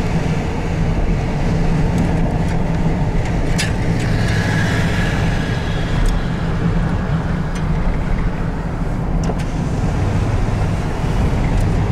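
Car running at road speed, heard from inside its cabin: a steady low rumble of engine and tyre noise with a few faint clicks.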